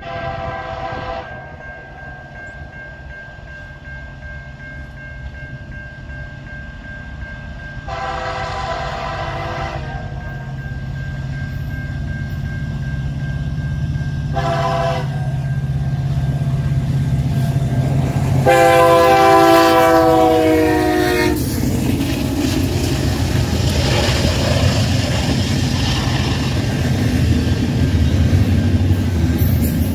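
The lead CN SD70M-2's Nathan K3L five-chime air horn sounding the long-long-short-long grade-crossing signal, the final blast held longest, over the steady ringing of a level-crossing bell. The diesel locomotives' rumble grows, and after the last blast the train passes close by, with wheels clacking over the rails.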